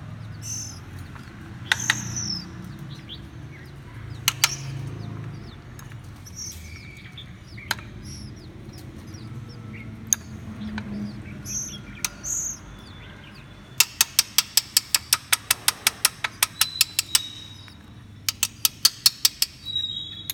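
Oriental magpie-robin nestlings giving short, high begging chirps while being hand-fed. Sharp single clicks come here and there, and two fast runs of clicks, about six a second, sound near the end.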